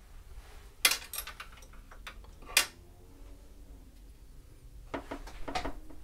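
Paintbrushes clinking and tapping against white enamel palette trays as paint is picked up and mixed: two sharp clinks about one and two and a half seconds in, lighter taps between them, and a few more near the end.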